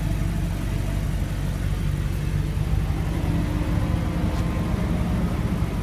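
A motor vehicle engine idling steadily, with a low even hum.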